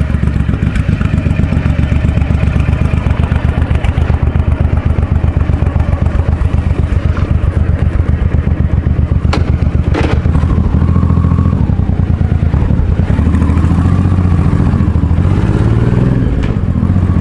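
Honda Shadow 1100's V-twin engine running with a fast, even firing beat, freshly after a carburettor cleaning, idling and then pulling away in the second half. A couple of sharp clicks about nine and ten seconds in.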